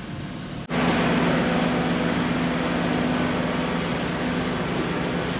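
Steady machinery noise aboard a car ferry: a loud even rush with a low, constant hum from the ship's engines and ventilation. It starts abruptly about two thirds of a second in, after a brief dropout.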